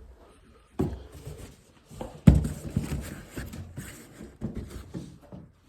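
A run of irregular knocks and clatter, starting a little under a second in, with one loud thump a bit over two seconds in.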